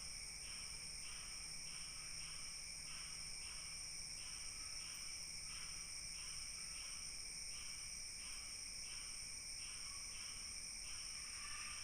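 Night insects such as crickets: a steady high-pitched trill with a rhythmic chirp pulsing about twice a second, faint.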